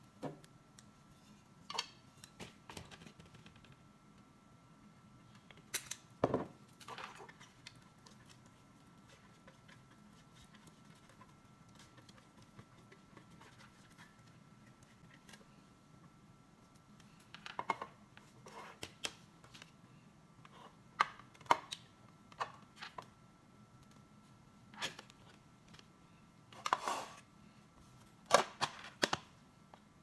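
Scattered clicks and knocks of plastic microwave containers and lids, and a silicone basting brush, being handled on a desk. The loudest knocks cluster near the end. A faint steady thin tone runs underneath.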